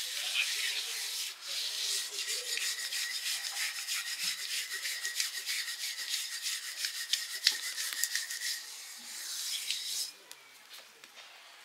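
Hands rubbing and smearing a wet paste over the underside of a round metal cooking pot: a quick, continuous scratchy rubbing that softens after about eight seconds and stops about ten seconds in.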